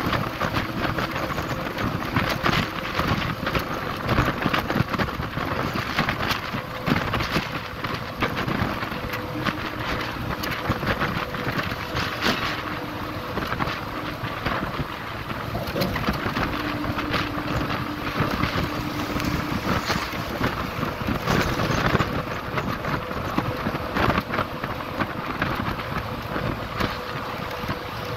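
Wind rushing and buffeting against the microphone from a moving vehicle, over steady road noise, with a faint steady hum and frequent crackles.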